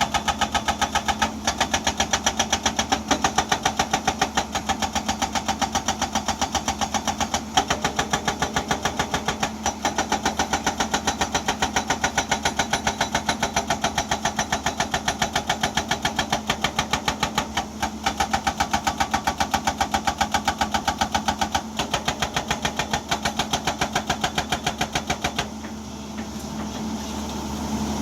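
Hydraulic breaker hammer on a Hyundai Ex210 excavator pounding rock in a rapid, steady stream of blows over the running diesel engine. The hammering stops a couple of seconds before the end, leaving the engine running and getting louder.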